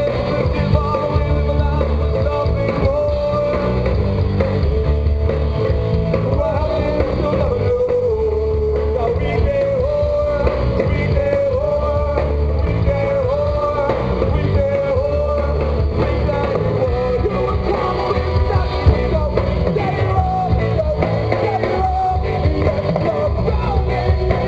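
Rock band playing a song live: electric guitar, bass and drums with a sung vocal line over them.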